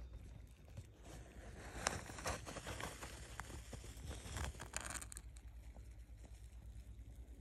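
Rustling and scraping of a fabric case being handled, with small clicks, from about a second in until about five seconds in; after that only a faint low rumble.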